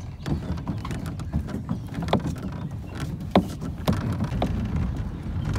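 A canoe with metal gunwales travelling down an asphalt road: a steady low rumble with irregular rattling clicks and knocks, the sharpest knock about three and a half seconds in.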